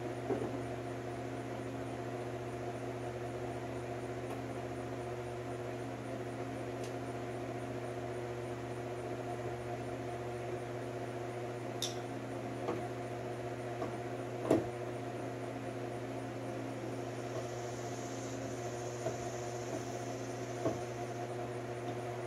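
Steady hum of an electric shop fan, with a few faint clicks and taps of hand-tool work inside a car door. The clearest tap comes about two-thirds of the way through.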